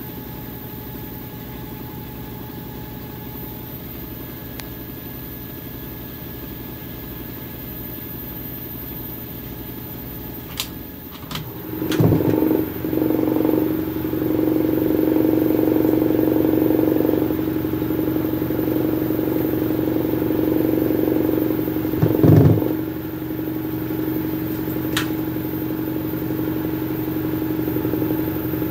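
LG Twin Wash Mini's drum spinning at speed, clothes plastered to its wall in a spin: a steady motor hum. It is muffled at first, then after a few clicks about ten seconds in it turns much louder and fuller once the lid is up. Two brief knocks stand out, one just after the change and one about ten seconds later.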